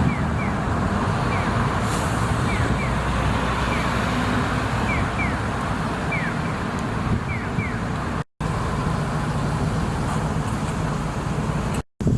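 Steady road traffic noise, with a string of short, high falling chirps over it for the first several seconds. The sound cuts out completely twice, briefly, once near two-thirds of the way through and again near the end.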